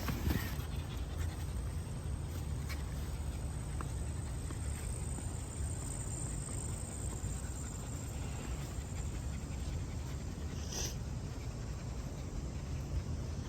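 Dog panting over a steady low outdoor rumble, with a single short click about eleven seconds in.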